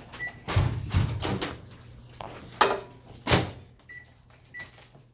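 Microwave oven door opened and a bowl set inside, with knocks and a thud of the door closing about three seconds in. This is followed by short keypad beeps as the cooking time is entered.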